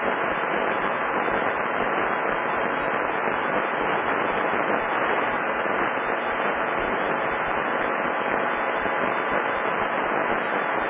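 Steady hiss of radio static on a recorded air traffic control frequency, thin and without any low bass.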